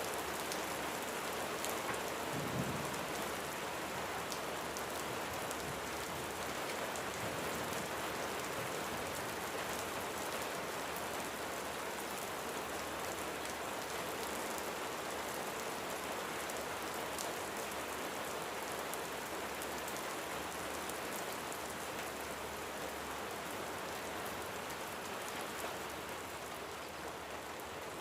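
Steady rain falling, an even hiss with scattered drop ticks, with a soft low thump about two and a half seconds in.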